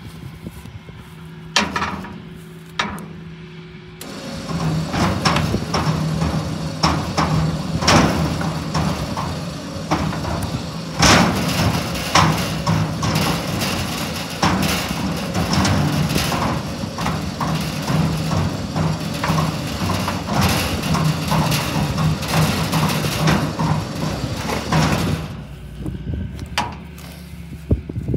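Dense, irregular clanking and knocking of metal motorcycle parts being handled and pulled apart, over a steady low hum. The clatter starts about four seconds in and dies away a few seconds before the end.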